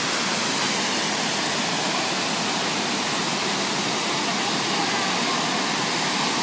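Waterfall rushing steadily, a constant even roar of falling water.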